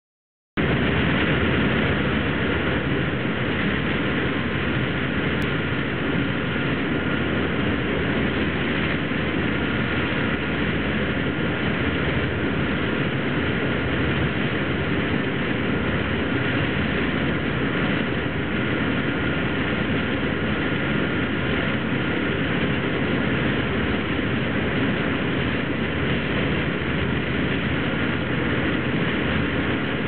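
A fast motorboat's engines running steadily at speed, mixed with the rush of its wake and wind. Starts about half a second in.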